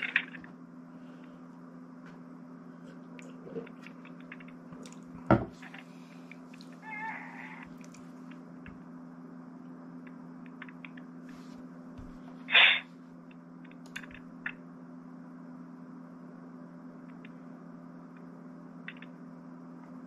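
Open speakerphone line in a pause of the call: a steady low hum with scattered faint clicks, a sharp knock about five seconds in, and two short high cries, the louder one about twelve seconds in.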